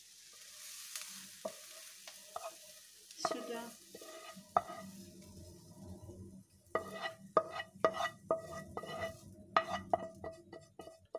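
Fried onion and carrot being scraped out of a hot frying pan into a pot, with a faint sizzle near the start. In the second half the spatula knocks against the pan in a run of sharp clacks, about one or two a second.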